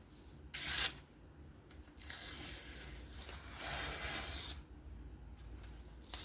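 Knife blade drawn through material to test its edge: one short, sharp stroke about half a second in, then two longer hissing strokes around two and four seconds in.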